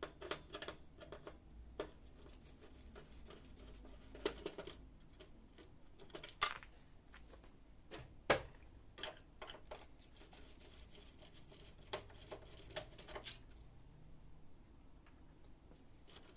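Scattered light clicks and taps of plastic and metal laser-printer parts being handled during disassembly, with two sharper clicks about six and eight seconds in.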